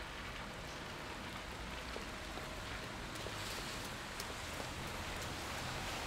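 Steady rain falling on wet pavement, with a few faint drip ticks.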